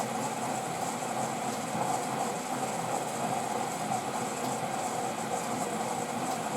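Front-loading washing machine running steadily through a rinse, its motor and drum turning.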